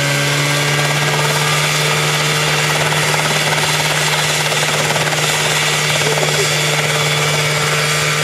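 A homemade single-seat helicopter's engine and main rotor running steadily at lifting power as it hovers just above the ground.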